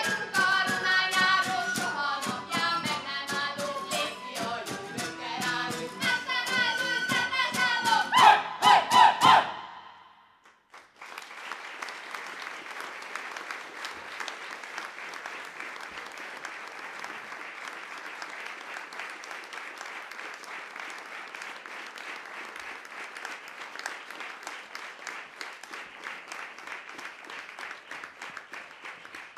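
Folk-style singing by several voices, with a koboz and a steady beat, ending with a loud final phrase about nine seconds in. After a brief pause, the audience applauds steadily for the rest of the time.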